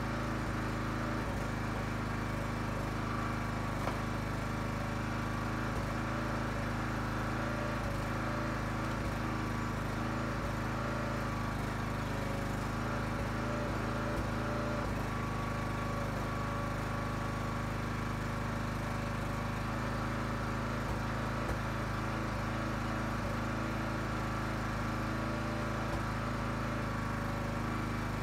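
Huskee 35-ton log splitter's small gas engine running steadily while short ash blocks are split, with a few faint knocks and cracks of wood scattered through it.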